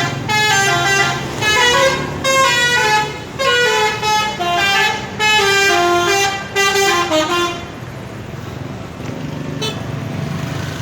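Bus 'telolet' musical air horn playing a rapid tune of stepping, repeating notes for about seven and a half seconds, then cutting off to leave a steady low rumble.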